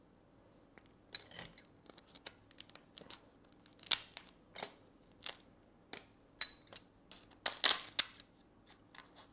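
Kitchen scissors snipping and cracking through the shell of a steamed crab: a quick, irregular run of sharp snips and crunches starting about a second in, the loudest crunch coming near the end.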